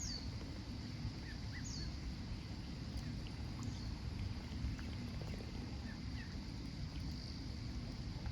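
Mallard ducklings peeping: scattered short, high, falling peeps over a steady low rumble.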